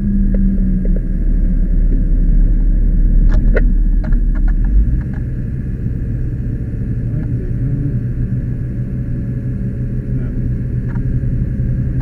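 Fire rescue truck's engine and road noise heard from inside the cab as it drives: a heavy, steady low rumble that eases off about five seconds in. A few sharp clicks come around three to four seconds in.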